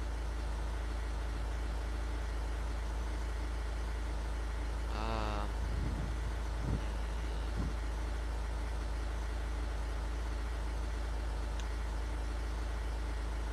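Steady low drone of a vehicle running, with an even hiss above it.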